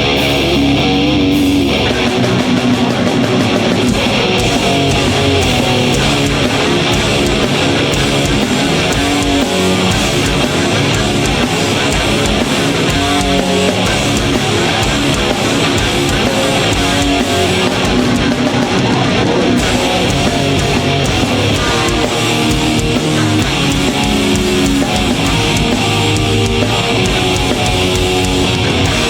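A metal band playing live and loud: distorted electric guitars and bass over a dense, fast beat that kicks in about two seconds in, replacing a held low chord.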